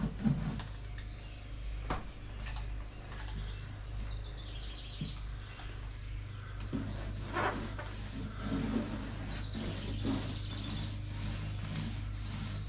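Birds chirping in two short runs over a steady low hum, with a few light knocks.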